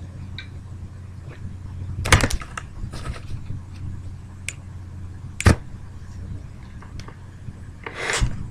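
Kitten scrambling and pawing at the wall of a plastic pet carrier: scattered knocks and short scratchy rustles, the sharpest about two and five and a half seconds in, over a steady low hum.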